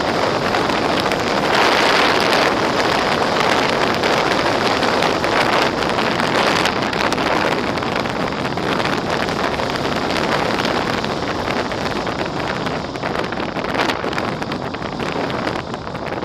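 Wind rushing over the onboard camera microphone of a Volantex Ranger EX RC plane in flight: a loud, steady rushing noise with no clear motor tone standing out.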